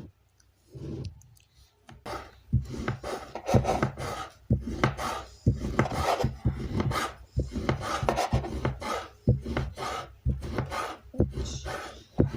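Egg-noodle dough being worked on a wooden board: a dense run of irregular rubbing, scraping strokes that start about two seconds in.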